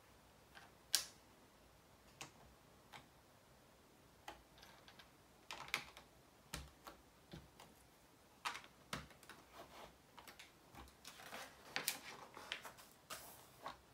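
Plastic Lego bricks clicking and tapping irregularly as pieces are handled and pressed together. There is a sharp click about a second in and a busier run of small clicks near the end.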